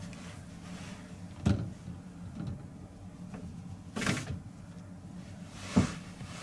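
A few sharp, irregular knocks, the loudest near the end, over a steady low hum.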